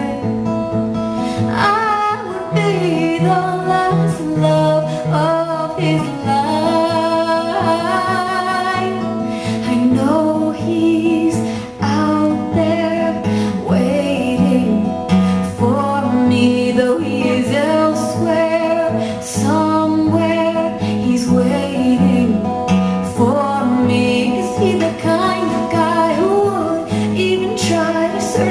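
A woman singing live, accompanying herself on a strummed steel-string acoustic guitar.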